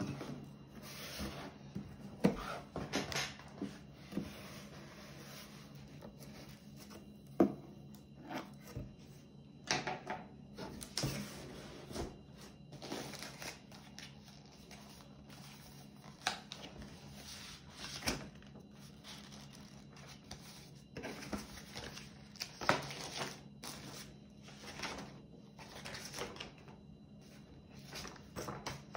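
Cardboard box and plastic packaging being handled and opened: irregular knocks, clicks, rustling and tearing, over a faint steady low hum.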